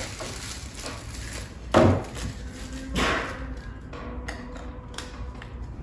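Knocks and clicks of the massager's plastic parts being handled and set down: two solid knocks a little over a second apart, then a couple of lighter clicks.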